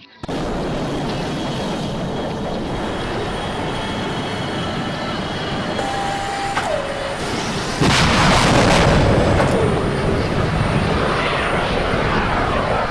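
Jet aircraft noise: a dense, steady rush with a tone that drops in pitch twice, and a sudden louder surge about eight seconds in.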